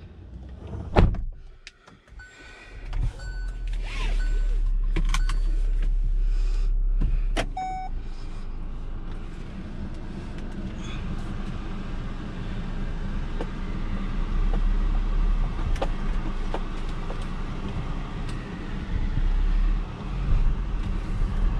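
A car door shutting with a thump about a second in, then the car's engine running steadily as the car reverses and pulls away. A few short dashboard chime beeps sound early on.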